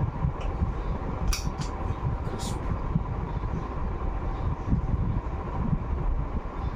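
Steady fan-like room hum with a low rumble, broken by a few sharp clicks between about one and a half and two and a half seconds in as the break-barrel air rifle is handled.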